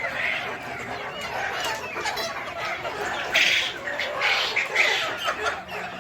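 A flock of Sonali chickens clucking and calling, with several louder squawks in the second half.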